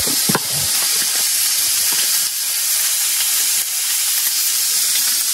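Slices of meat sizzling in a frying pan on a propane burner: a steady frying hiss.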